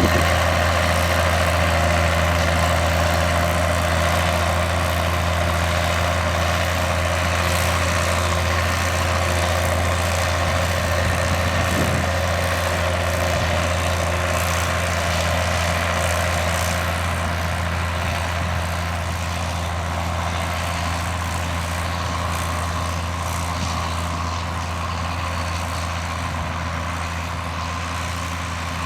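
John Deere 7710 tractor's six-cylinder diesel engine running steadily at a constant pitch while pulling a round baler-wrapper, slowly growing fainter.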